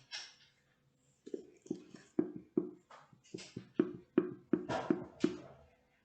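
Plastic glue bottle being squeezed and tapped to get the last glue out: a run of about ten short pops, two or three a second, starting about a second in.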